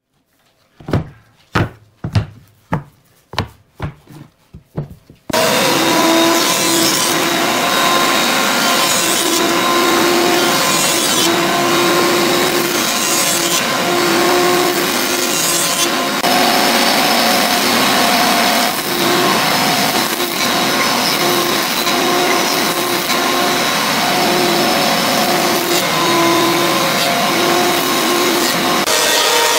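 About eight sharp percussive hits, each fainter than the last, then a jointer starts running and planing the edges of boards fed across its cutterhead. It makes a loud, steady cutting noise with a hum that swells and eases with each pass.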